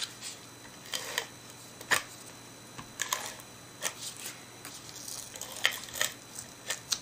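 Cardstock and paper being handled and pressed down on a craft mat: scattered soft rustles and light taps, roughly one a second, with a few sharper clicks.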